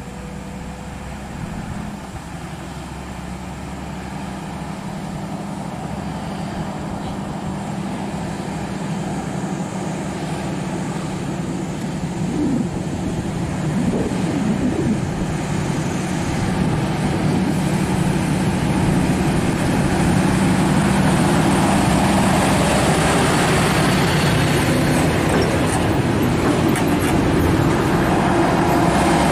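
Heavy truck's diesel engine, a Scania R580 V8, running with a steady low drone that grows steadily louder as the truck draws closer, levelling off in the last third.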